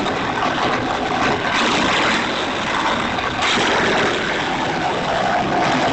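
Jansen GTS 1500E wood chipper with its 15 horsepower engine running and chipping brush: a steady, dense grinding that steps up in loudness a few times.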